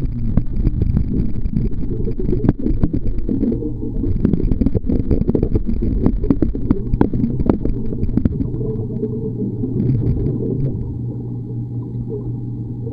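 Swimming-pool water heard from a camera held underwater: a muffled low rumble with dense crackling and popping from swimmers splashing and kicking nearby. The crackling thins out after about eight seconds, leaving a steadier rumble.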